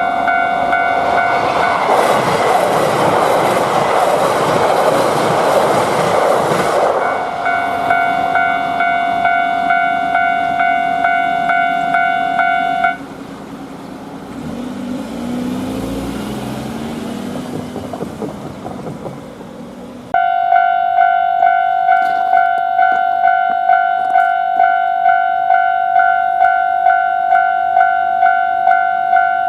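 Japanese level-crossing warning bell ringing its repeating 'kan-kan' at about one and a half strokes a second. About two seconds in, a passing train's loud running noise swamps it for several seconds. The bell cuts off after about thirteen seconds, leaving quieter train running noise with sliding pitch, and comes back abruptly about twenty seconds in.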